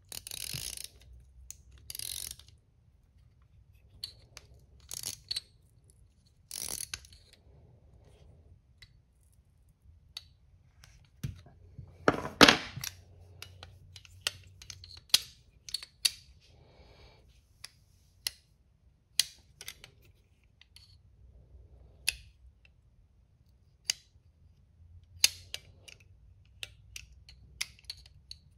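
Irregular metallic clicks, taps and short scrapes of small tools and parts on a Subaru Justy DFC328 carburetor's throttle body as the throttle-shaft nut is tightened, with the loudest clatter about twelve seconds in.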